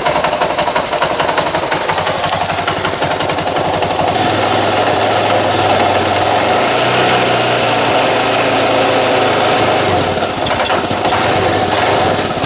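Yamaha Ténéré 660 single-cylinder engine running with a dense, fast clattering rattle over the engine note. Engine speed picks up a little about four seconds in and eases back near the end. The rattle is taken to come from the primary drive.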